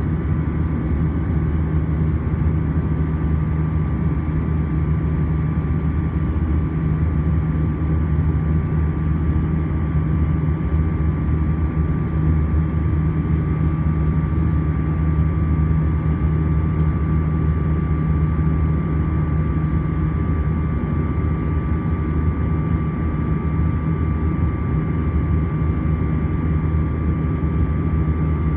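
Airbus A320-200 cabin noise heard over the wing while climbing out after takeoff: a loud, constant engine drone with a thin steady whine above it.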